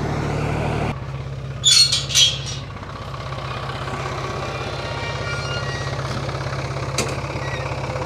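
Tractor engine idling. About a second in it drops to a lower, pulsing idle, followed shortly by a few short high hissing squeals. A single sharp click comes near the end.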